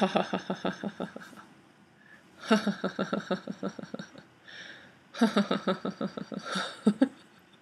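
A woman's deliberate, forced laughter: three bursts of rapid, evenly pulsed 'ha-ha-ha', with short breaths drawn between them. It is 'serious laughter', a laughter-yoga exercise laughed on purpose with a straight face.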